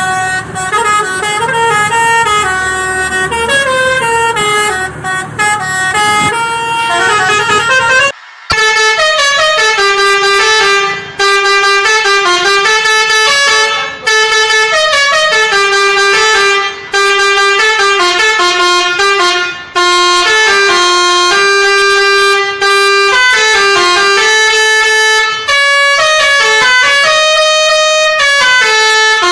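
Multi-tone 'telolet' musical horn playing a tune in quick stepped notes, with short breaks between phrases. An engine rumbles underneath for the first eight seconds. After a brief cut the horn melody carries on alone.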